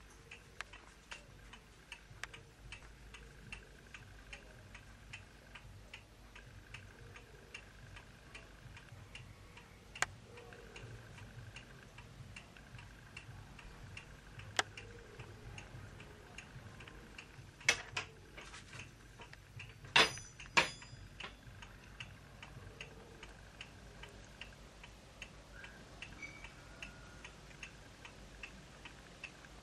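Steady, light ticking at about two ticks a second, with a few sharp knocks a little past halfway.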